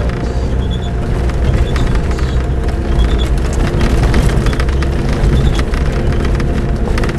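A vehicle driving over a rough, rutted dirt track: a heavy, steady low rumble with many small knocks and rattles from the bumpy ground.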